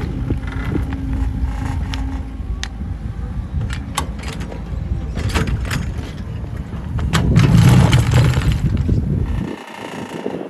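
Excavator running under load while prying at a large stone, a steady low rumble with repeated sharp knocks and clicks of the bucket against rock. The rumble swells near the end, then drops away abruptly.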